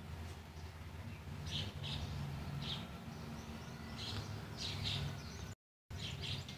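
Faint bird chirps in the background, short high notes every half second or so, over a low steady hum. The sound cuts out for a moment about five and a half seconds in.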